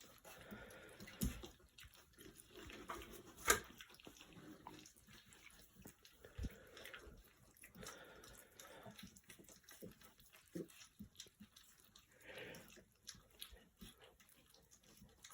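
Three-week-old puppies eating soft mash: faint wet lapping, slurping and smacking, with scattered small clicks and one sharper click about three and a half seconds in.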